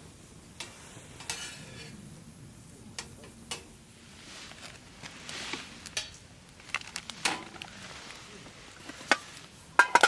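Handling sounds: scattered clinks, knocks and scrapes, with a short hissing stretch about halfway through and a cluster of sharp knocks near the end.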